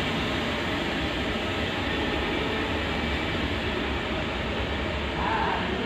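Steady running noise of biscuit-factory machinery, heavy in the low end, with a brief higher-pitched sound about five seconds in.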